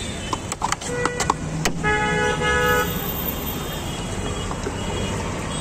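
Vehicle horn sounding once for about a second, about two seconds in, over steady street traffic noise. A few sharp clicks come before it.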